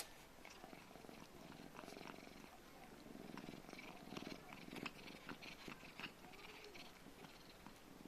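A cat purring faintly, with a few soft small sounds mixed in.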